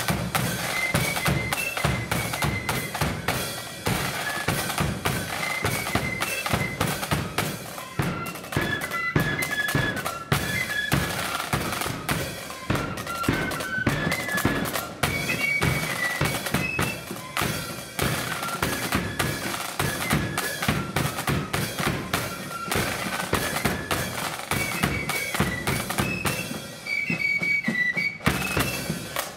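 Blood-and-thunder marching flute band playing: flutes carry a high melody over rapid snare drumming and a bass drum beat.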